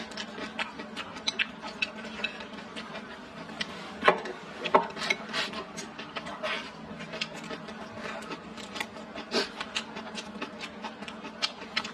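Close-up eating sounds: chewing and wet mouth smacks, with irregular short clicks of wooden chopsticks against the bowl, the sharpest about four seconds in.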